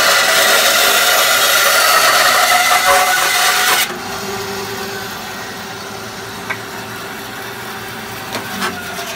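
Record Power BS400 bandsaw with a 3/8-inch blade cutting a curve through a wooden block. The cut ends suddenly about four seconds in, and the saw runs on unloaded, quieter, with a steady hum. A few light clicks come near the end.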